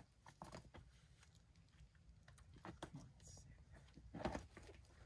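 Faint, scattered scuffs and taps of a climber's shoes and hands moving on rock during a boulder problem, with a short vocal sound about four seconds in.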